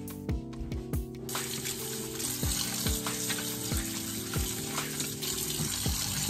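Kitchen tap turned on about a second in, water running into a stainless steel sink and splashing over napa cabbage leaves as they are rinsed by hand. Background music with a regular beat plays throughout.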